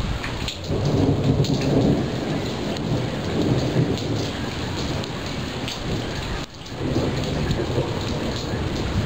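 Monsoon thunderstorm: a long, loud roll of thunder rumbling over steady rain. The rumble drops away briefly about two-thirds of the way through, then rolls on again.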